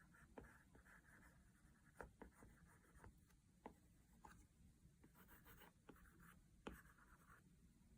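Faint taps and scratchy strokes of a stylus on a tablet screen, with scattered light ticks and two longer stretches of stroking.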